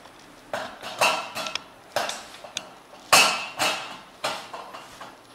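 Sharp metal clinks and knocks of a portafilter being fitted and locked into the group head of an Elektra Micro Casa Semiautomatica espresso machine, about eight in all, the loudest about three seconds in.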